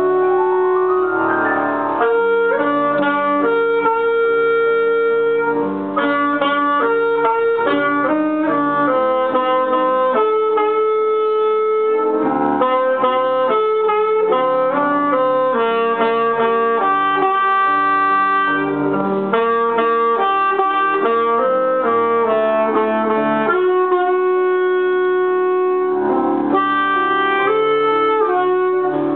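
Saxophone playing a melody of held notes over grand piano accompaniment, with a quick rising run about a second in.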